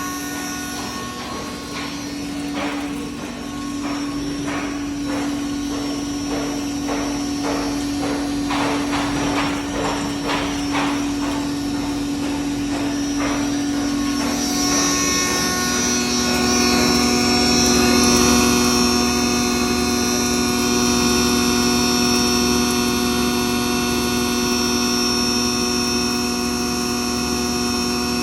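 20 HP double-chamber stoneless maize grinder and its blower running with a steady hum, with a run of knocks about twice a second through the first half. About halfway through, the hum drops slightly in pitch and a hiss rises.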